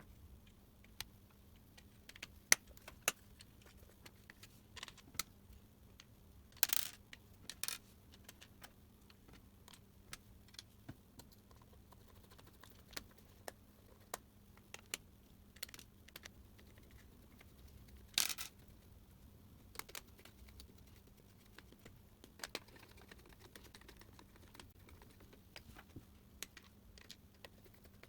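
Small plastic and metal parts of a work light being handled by hand, giving irregular light clicks and taps, with a few louder clacks about seven seconds and about eighteen seconds in.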